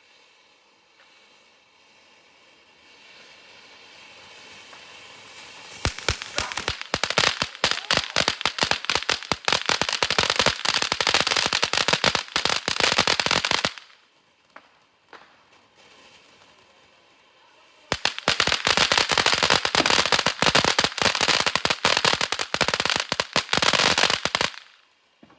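Ground fountain firework (a Fantasyland fountain) burning: a hiss builds up, then breaks into dense crackling for about eight seconds. After a short lull comes a second stretch of crackling of about six seconds, which cuts off suddenly near the end.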